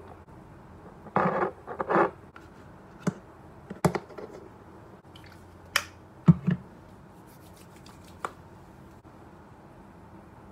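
Skincare bottles and tubes set down one by one on a hard tabletop, giving several sharp knocks, with brief scuffing and handling sounds between them.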